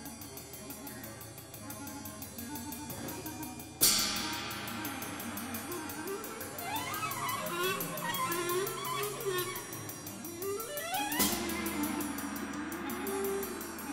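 Music playing, with pitched lines that glide and waver like a melody, and two sudden loud crashes, about four and eleven seconds in.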